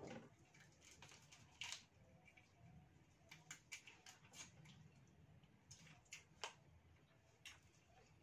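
Faint, irregular clicks and crackles of eating fried mantis shrimp: crisp shells being chewed and broken apart by hand.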